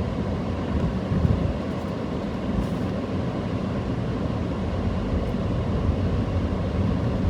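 Steady low rumble of a car on the move, with road and engine noise heard inside the cabin.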